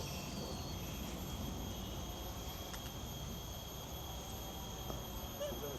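Forest ambience: insects droning steadily in several high, unbroken tones over a faint low rumble.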